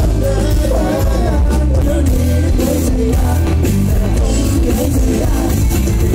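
Live pop band playing loud through a stage PA: a lead singer over heavy bass and drums.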